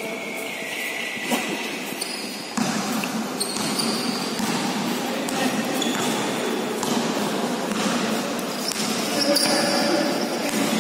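Basketball bouncing on a hard indoor court during play, with short high shoe squeaks, all echoing in a large hall.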